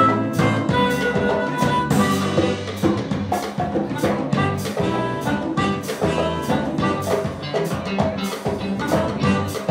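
Live jazz-funk band playing an instrumental: harmonica and saxophone lines over a drum kit and guitar, with a steady beat.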